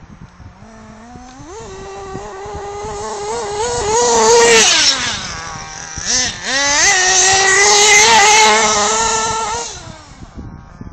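Carson Specter 1/8 off-road RC buggy's two-stroke nitro engine revving up and running at high revs, easing off about five seconds in, then revving high again and fading away near the end.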